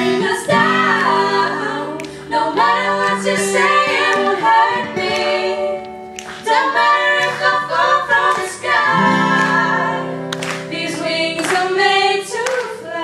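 Three girls singing a pop song in harmony into microphones, accompanied by a strummed acoustic guitar.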